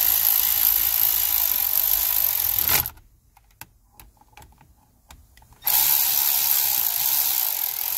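Cordless electric ratchet running in two bursts as it drives in the Torx bolts holding a Kia K3's column-mounted electric power steering (MDPS) motor. The first burst stops about three seconds in, the second starts near six seconds in, and a few light clicks fall in the gap between them.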